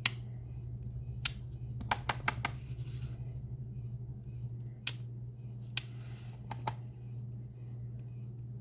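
Scattered sharp taps and clicks of a photopolymer rubber stamp being dabbed on an ink pad and pressed onto cardstock, with a quick cluster of taps about two seconds in. A steady low hum runs underneath.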